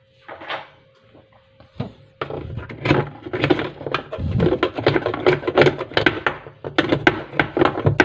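Dense, rapid clicking and rattling of hard objects, starting about two seconds in: a screwdriver working at the plastic pulsator in the tub of a top-loading washing machine.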